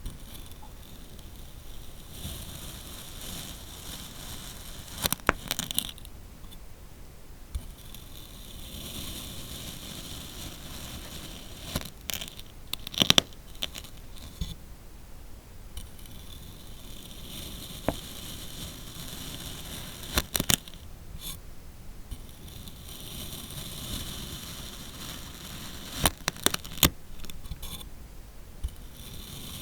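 Kinetic sand being cut, with a grainy, crunchy scraping in repeated passes and a few sharp clicks in between.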